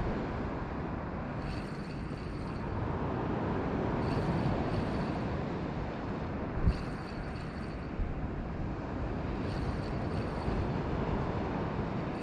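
A Shimano Stradic CI4 2500 spinning reel wound in short whirring bursts about every two and a half to three seconds as a pelagic jig is worked through mid-water. Under it runs a steady rush of sea and wind, with one dull thump about halfway through.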